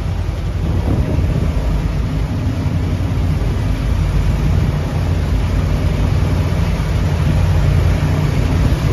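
A boat's engine running with a steady low rumble, under a constant rush of wind and choppy water.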